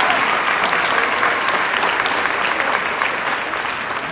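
Large audience applauding, dense clapping that slowly dies down toward the end.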